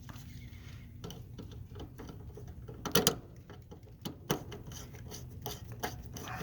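Hands working at a heat pump's control panel, likely pulling a connector off the board: scattered clicks and rubbing, with the loudest knock about three seconds in, over a faint steady low hum.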